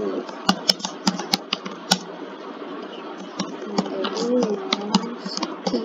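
Computer keyboard keys clicking as a line of text is typed: irregular, sharp keystrokes with short pauses between runs.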